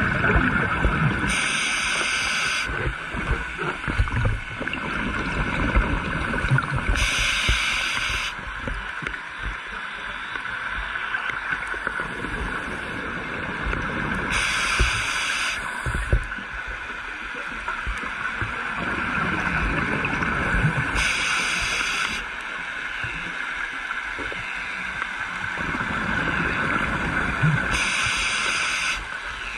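Scuba diver breathing underwater through a regulator: five bursts of exhaled bubbles, about one every six or seven seconds, over a steady underwater hiss and low rumble.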